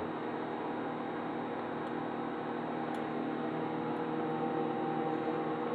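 Microwave oven running with a steady humming, mid-cook.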